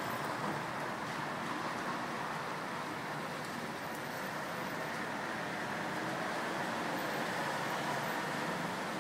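Steady hiss of road traffic, getting a little louder in the second half.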